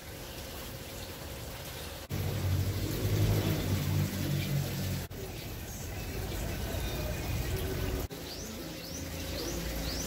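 Aquarium water sounds with an air-driven sponge filter bubbling: a steady hiss of water. The sound cuts abruptly about every three seconds, a low hum runs from about two to five seconds in, and a few short rising chirps come near the end.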